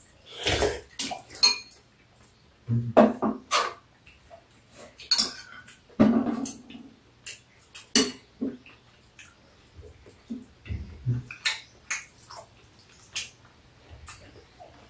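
Metal chopsticks and spoons clinking and tapping against bowls and plates at a meal: many short, irregular clicks.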